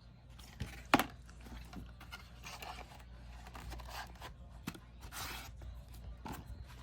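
A 4K Blu-ray case and its paper inserts handled by hand: a sharp plastic click about a second in, then paper and plastic rustling and scraping with a few small clicks.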